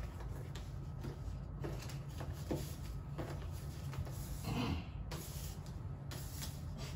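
Quiet room tone with a steady low hum, and faint soft taps and rustles of paper slips being laid out on a wooden coffee table. A brief muffled sound stands out about four and a half seconds in.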